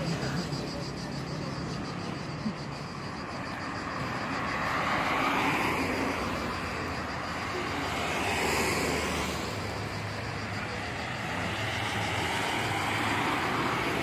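Street traffic: vehicles passing on the road, their noise swelling and fading about five seconds in and again about eight seconds in, over steady street noise.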